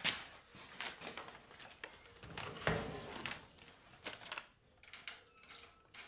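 Workshop handling noises: paper crackling, and a few knocks and clicks as a small wheel is fitted onto the axle of a steel barbecue frame. The loudest is a thump about two and a half seconds in.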